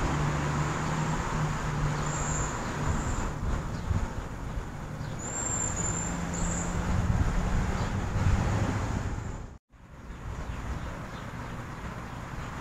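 Steady vehicle and road-traffic rumble with a low hum. About ten seconds in it cuts out to silence for a moment, then resumes a little quieter.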